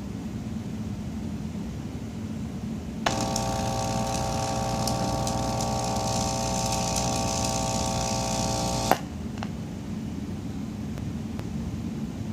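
A 25-watt 4-ohm Ford car speaker driven from a doorbell transformer buzzing with mains hum and crackling for about six seconds, then cutting out with a sharp pop as its voice coil burns out. A steady background noise runs under it.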